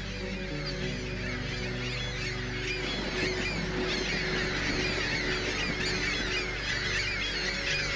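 A flock of ring-billed gulls calling: many short overlapping calls at once, growing denser and louder about three seconds in.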